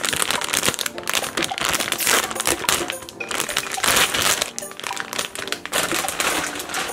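Plastic wrapping crinkling continuously as a squishy toy is unwrapped, over background music.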